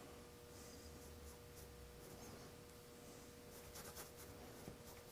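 Faint paintbrush strokes on canvas: a few soft, scratchy dabs of oil paint, with a small cluster of quick taps near the end, over a low steady room hum.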